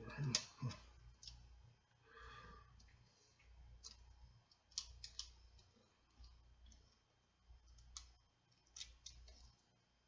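Quiet, irregular small clicks and taps of a hobby knife tip and fingers on the plastic housing and tiny parts of a Kato No. 6 turnout, as a part is worked into place.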